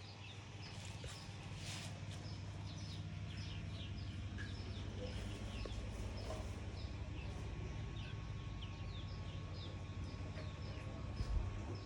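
Small birds chirping repeatedly, short falling notes coming several times a second, over a steady low hum.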